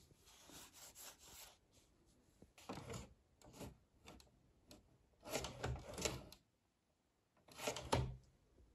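Fingers pushing and rubbing the plastic cassette-slot flap on the front of a Sony SLV-X312 VHS recorder: a few short scrapes and rubs, the loudest two about halfway and near the end.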